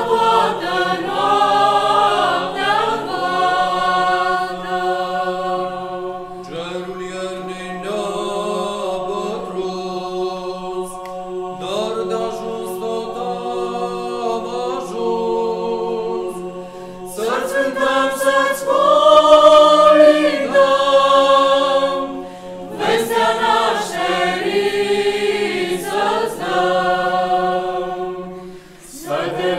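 Mixed parish choir singing a Romanian Christmas carol (colind) a cappella, in phrases of several seconds over a low note held steady beneath them. It swells loudest a little past the middle.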